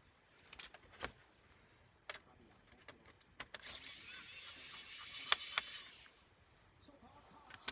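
Small clicks and taps of tools on the laptop's plastic case, then a small electric screwdriver whirring for about two seconds as it drives out a case screw.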